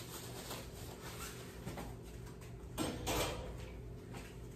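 Faint rustling of a paper towel as hands are wiped dry, loudest about three seconds in, over a steady low hum.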